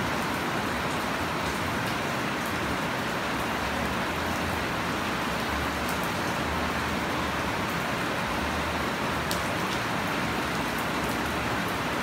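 Steady heavy rain falling on leafy plants and bare soil: an even hiss of rainfall with occasional sharper drop ticks.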